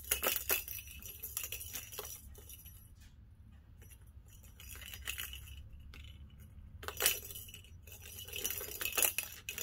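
Small plastic ball clattering around the tracks of a plastic tower-of-tracks cat toy as a cat bats at it: quick runs of clicks and rattles, quieter in the middle, with a sharp click about seven seconds in and more clatter near the end.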